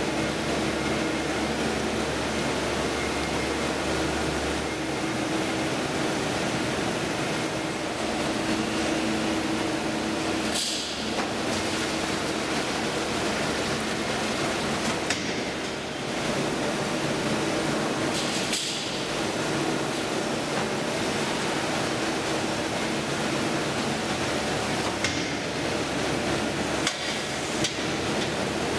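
N&N Mixer Cooker 1600S running in a food plant: a steady machine hum and hiss with a few faint tones held under it, and several brief metallic knocks. A low hum drops out about five seconds in.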